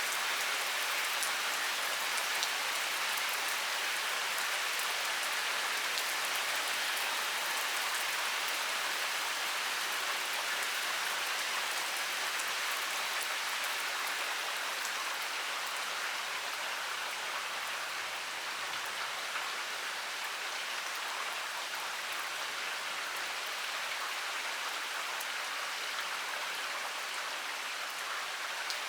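Heavy rain pouring steadily, a dense hiss of drops with many small pattering hits on surfaces.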